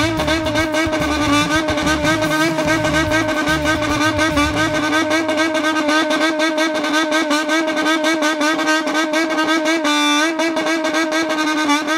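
Customised motorcycle's engine revved on the spot and held high, its note steady with a fast flutter, shifting briefly about ten seconds in.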